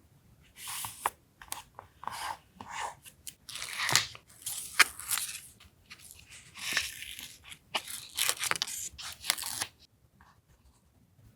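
Paper being torn and handled, in irregular rustling bursts over several seconds with a few sharp snaps.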